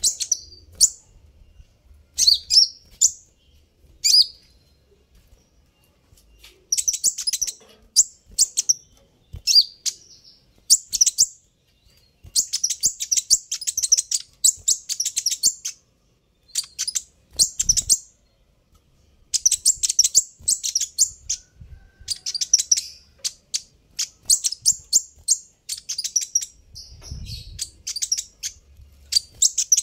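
Kolibri ninja (purple-throated sunbird) calling: phrases of rapid, very high-pitched chirps and twitters, repeated with short pauses between them.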